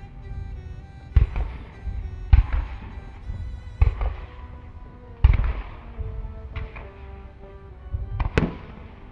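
Fireworks going off: about six deep bangs at irregular intervals of a second or so, the sharpest crack about eight seconds in, over background music.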